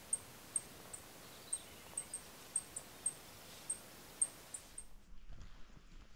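Faint, very high, short chirps from a small animal, two or three a second at an uneven pace. They stop about five seconds in, and low thumps and rumbling take over.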